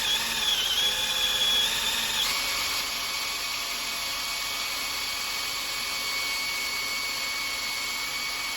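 Handheld electric drill running a 3 mm bit into a snapped, very hard grade 12.9 bolt, its motor whining steadily under load. The pitch dips as it bites at the start and shifts about two seconds in, then holds steady.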